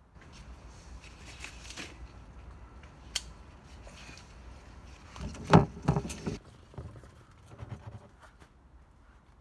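Tomato harvesting by hand: leaves and vines rustling with scattered clicks and snaps as the plants are worked. About five and a half seconds in comes a short cluster of loud knocks and thumps, the loudest sound here.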